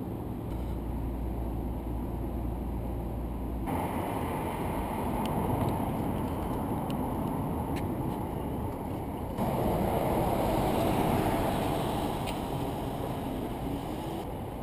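Outdoor city street ambience: a steady, low rumbling noise of traffic and wind, with a few faint clicks. It changes abruptly about four and again about nine seconds in.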